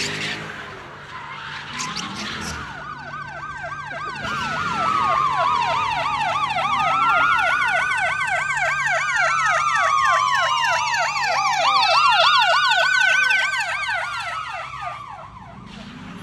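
Police sirens: one yelping in fast up-and-down swings of about five a second, another wailing in slow rising and falling sweeps, both starting a couple of seconds in and cutting off shortly before the end. The sirens are the sign of police arriving to break up the street takeover.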